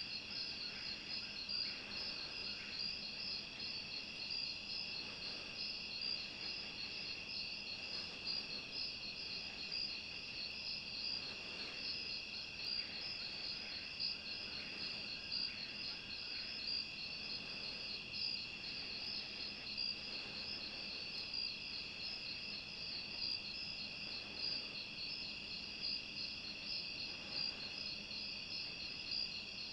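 Night chorus of crickets and other insects: a steady high trill, with a fast, evenly pulsing layer above it.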